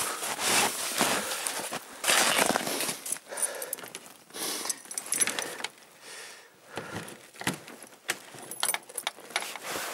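Irregular rustling, small knocks and light metallic jangles as gear is handled on a snowmobile and snow is brushed off it; the engine is not yet running.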